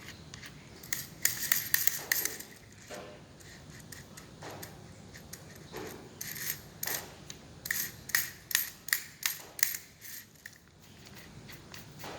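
Sharp clicks and light metallic clinks of small parts of a disassembled 12 V cordless drill being handled: a quick cluster about a second in, then a longer run of separate taps from about six to ten seconds in.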